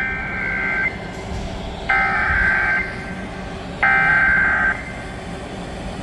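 Emergency Alert System SAME header: three bursts of buzzy digital data tones, each about a second long and a second apart, played over FM radio through a Sony portable cassette radio's speaker. The header encodes a Child Abduction Emergency (AMBER Alert).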